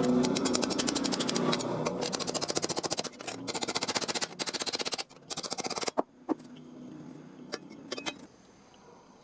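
A power tool running in fast, even strokes. It breaks off briefly twice and stops about six seconds in, followed by a few separate sharp knocks.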